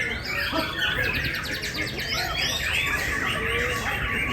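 Many caged songbirds singing at once in a competition: a dense, unbroken mix of overlapping chirps, whistles and fast trills.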